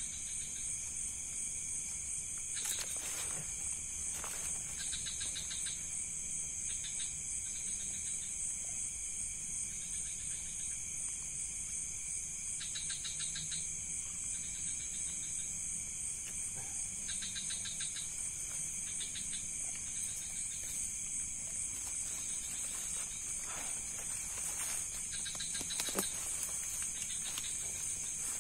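Night chorus of crickets and other insects: a steady high-pitched trill over a lower steady buzz, with shorter pulsed chirps coming and going every few seconds. A few faint clicks, the sharpest about 26 seconds in.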